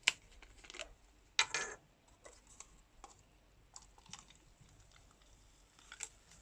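Light clicks and taps of a plastic soda bottle and its screw cap being handled, with a louder cluster of knocks about a second and a half in, then the carbonated blue cider soda poured into a paper cup, heard as faint scattered ticks.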